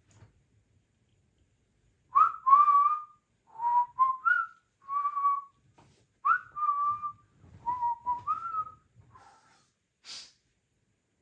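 A man whistling a short tune by mouth in two similar phrases, each opening with an upward swoop into a held note. A brief hiss follows just after the second phrase.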